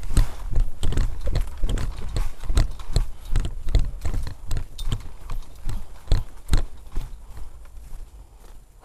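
Running footsteps on a dirt trail covered in dry leaves, heard through a GoPro worn by the runner, about three thudding strides a second. The steps slow and grow quieter near the end.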